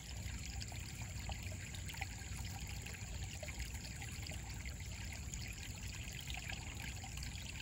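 Shallow stream trickling steadily over rocks.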